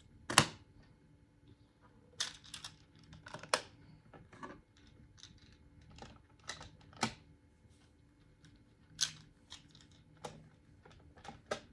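Plastic magnetic building tiles clicking together and being set down: irregular sharp clacks a second or two apart, the loudest about half a second in.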